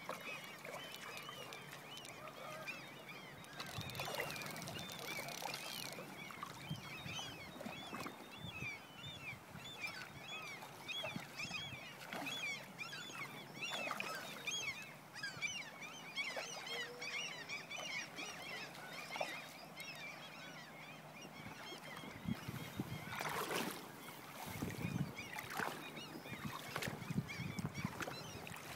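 Many birds calling over each other in short, high calls, with a few sudden splashes as a hooked salmon thrashes at the river's surface.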